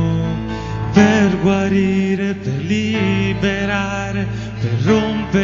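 Church worship group singing a song in phrases over steady instrumental accompaniment.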